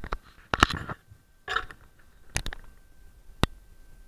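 A handful of sharp knocks and cracks at irregular intervals, the loudest a little over half a second in, with a last short crack near the end.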